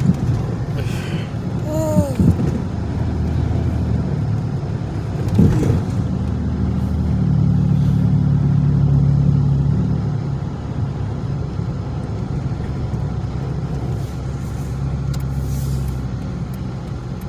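Dodge Magnum's engine running while driving, heard from inside the cabin. The engine note builds about six seconds in, holds, then eases off after about ten seconds.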